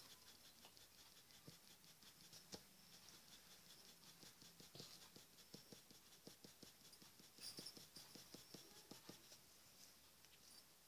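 Very faint scratching of a graphite pencil shading on paper: a run of short, quick strokes with soft ticks.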